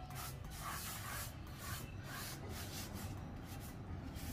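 Cloth wiping back and forth over a painted wall, a soft repeated rubbing with each stroke, about two or three strokes a second, as toothpaste is wiped off the wall.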